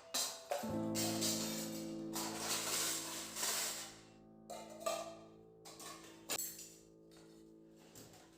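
Soft instrumental background music: a held chord comes in about half a second in and sustains, with intermittent short hissing swishes over it.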